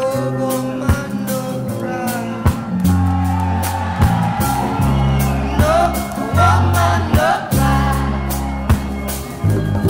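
Background music with a steady drum beat, sustained bass notes and a wavering melody line.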